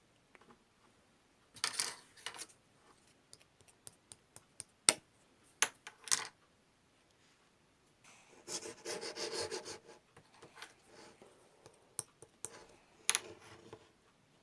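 Slime being pressed and poked by hand, giving sharp clicking pops and short crackly bursts, with a longer run of rapid crackling about eight to ten seconds in.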